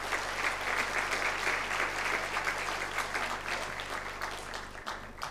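Large audience applauding, the clapping easing off slightly toward the end.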